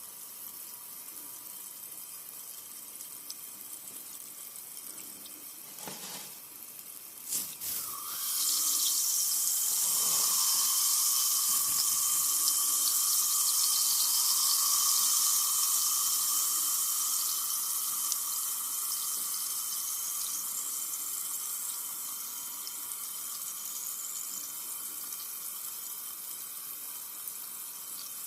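Carbonated soda fizzing, with a couple of short knocks, then about eight seconds in a loud rush of soda pouring and foaming that slowly dies down to a softer fizz.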